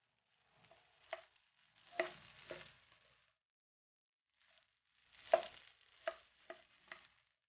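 Plastic spatula stirring and tossing fried rice in a nonstick wok: a run of sharp scrapes and knocks against the pan, with rice rustling between them. The strokes come in two clusters with a short lull in the middle.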